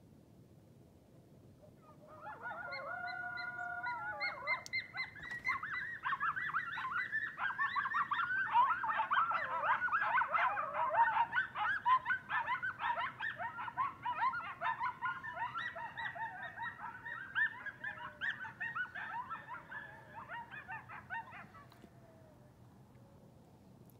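A pack of coyotes howling and yipping. One wavering howl starts about two seconds in, then many voices join in a dense, high chorus of yips and howls that builds to a peak and breaks off near the end.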